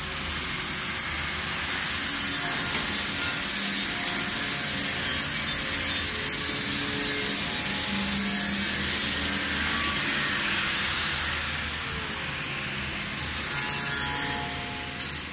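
Steel being worked in a metal fabrication shop: a steady, harsh rasping that keeps on with little change. A faint hum lies under it.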